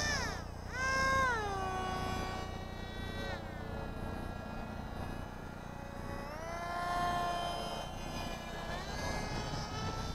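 RC plane's motor and propeller whining in flight, its pitch falling about a second in and again a couple of seconds later, then rising twice as the throttle changes or the plane passes.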